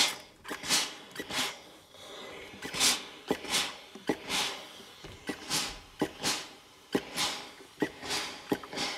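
Steam iron being pushed and pressed over a knit T-shirt hem on an ironing board: a string of short hissing, swishing strokes, about one or two a second, with a few sharp knocks among them.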